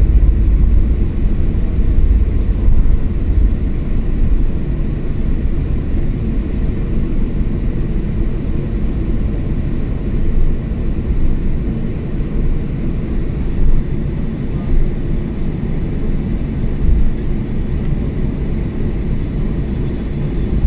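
Cabin noise of a Boeing 737-800 taxiing, heard from a window seat by the wing: its CFM56 turbofan engines and the rolling airframe make a steady low rumble that swells briefly now and then.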